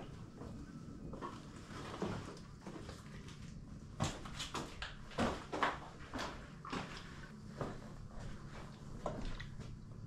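Quiet, irregular footsteps scuffing and knocking on a cave's rocky floor: scattered clicks and taps, a few louder ones around the middle.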